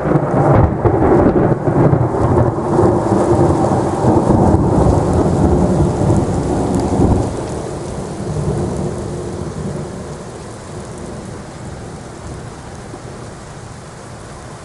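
Thunderstorm: a long, loud rumble of thunder over steady rain, fading out over the second half to leave the rain alone.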